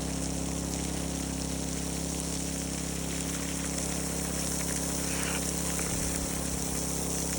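Water running from a hose onto the rink ice while it is being flooded, a steady hiss over a constant low machine hum.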